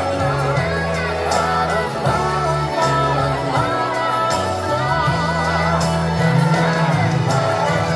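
Pop song with a female vocal singing in vibrato over a steady bass line and regular drum beats, played over a hall's speakers.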